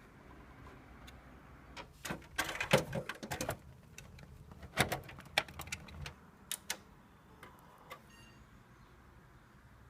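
A flurry of sharp clicks and knocks, like hard objects being handled, in two bursts about two and five seconds in, then a couple of single clicks.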